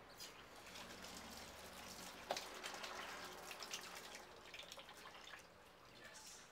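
Water running from a tap and splashing over a wet baby monkey into a plastic basin. A sharp click about two seconds in, after which the water runs strongly for a few seconds, then eases off.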